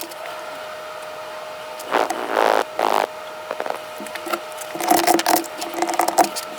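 Irregular plastic clicks and clacks from a mechanical keyboard, with a louder rushing noise about two seconds in.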